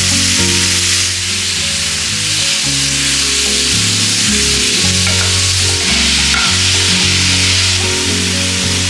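Food frying in hot oil in a pan, a steady sizzle, with background music of held low notes playing underneath.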